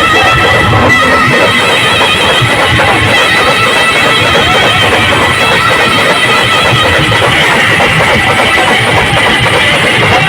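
Very loud band music played over a sound system: a guitar-like plucked melody over drums, steady and unbroken.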